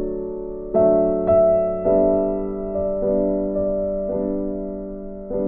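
Background piano music: slow, gentle chords, each struck and left to ring and fade before the next.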